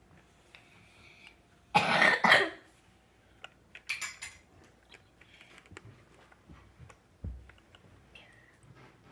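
A person coughing: one loud harsh burst with two peaks about two seconds in, followed by a shorter hissing burst, amid small clicks and a low thump near the end.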